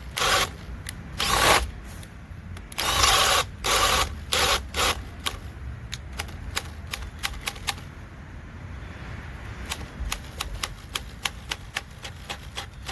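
Makita XPH07 brushless cordless hammer drill boring with a 1.5-inch Bosch Daredevil spade bit under heavy load, in short stop-start bursts as the bit is worked down. From about nine seconds in comes a run of quick sharp clicks, a couple a second.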